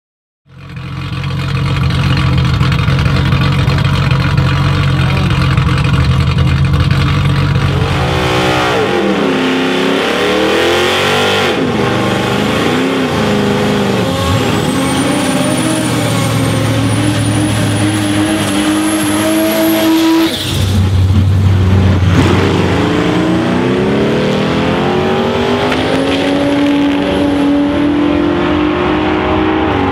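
Turbocharged Nissan RB30 straight-six in a Holden VL Calais drag car, revving hard through a tyre-smoking burnout, its pitch swinging up and down and then held. About two-thirds of the way in the sound breaks off suddenly, and the engine note then climbs steadily as the car pulls away down the strip.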